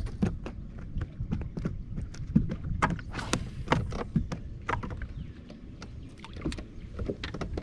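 Small waves slapping against a bass boat's hull over a steady low rumble, with scattered sharp clicks and knocks from handling the rod and reel on the deck.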